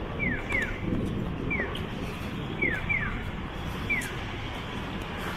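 Japanese pedestrian crossing signal chirping: short, falling bird-like electronic 'piyo' chirps, a single chirp answered by a double chirp, repeating about once a second, the signal that the walk light is on. Street traffic hums underneath.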